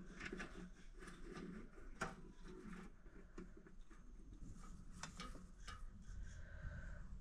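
Horizontal window blinds being opened: the slats rattle and click as they tilt, with a few sharper clicks about two seconds in and again around five seconds in.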